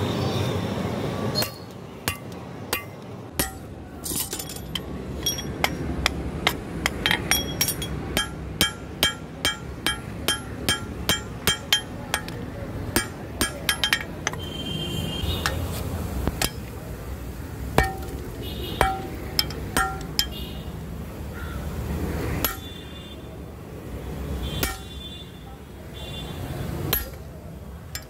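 Blacksmith's hand hammer striking steel on an anvil: a run of sharp ringing clinks, about two a second, thinning out to a few scattered blows in the second half.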